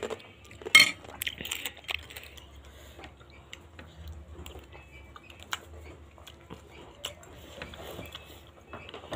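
Metal spoon clinking and scraping against a ceramic soup bowl, with one sharp clink about a second in and scattered lighter taps after, amid chewing.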